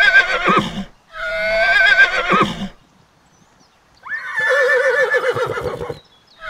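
Foals neighing: one high, quavering whinny trails off about a second in, a second whinny follows straight after, and after a short pause a lower-pitched neigh comes in about four seconds in.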